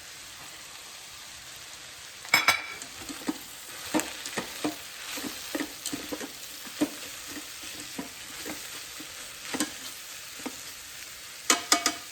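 Vegetables sizzling in oil in an Instant Pot's stainless steel inner pot on sauté, stirred with the utensil scraping and clicking against the pot. A loud clatter of knocks about two seconds in and another near the end.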